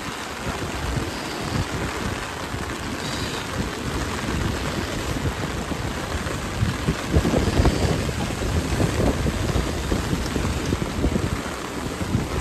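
Steady rain falling, with low gusty rumbles now and then.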